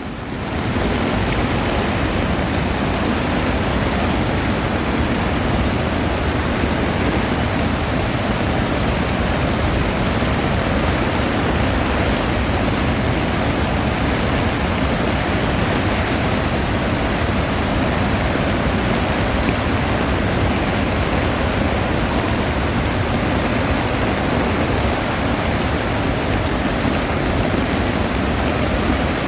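Rushing water of a mountain stream swollen by heavy rain: a loud, steady roar that fades in during the first second.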